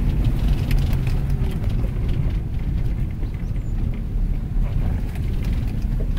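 Second-generation Cadillac Escalade driving slowly over a rough, rocky dirt road, heard inside the cabin: a steady low rumble of engine and tyres on stones, with scattered clicks and knocks from gravel and rattles.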